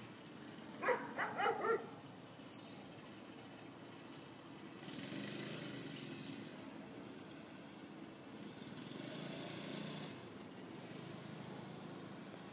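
A dog barks four times in quick succession about a second in, then once more a second later. After that a motor vehicle passes, growing louder and fading twice.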